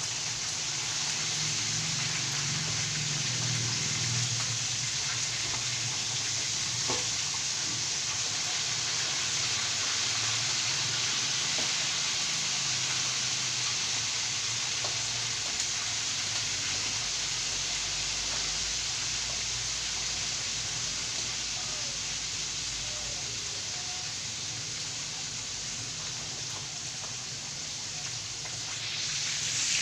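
Chicken pieces frying in hot oil: a steady sizzle that grows louder near the end.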